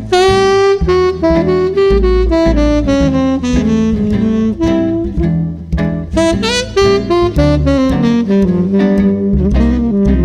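Jazz music: a saxophone plays a melody of held notes with upward scoops over a bass line.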